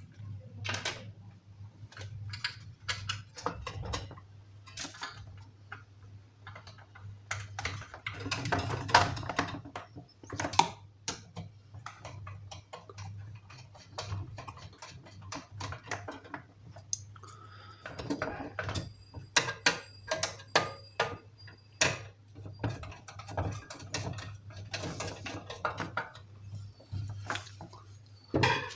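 Irregular clicks, clinks and light knocks of metal parts being handled as ceiling fan blades are fitted and screwed on, over a low steady hum.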